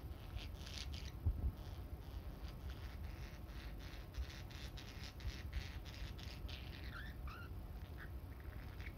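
Budgerigar and peach-faced lovebird chattering softly: a stream of short high chirps and clicks, with a few bending chirps about seven seconds in.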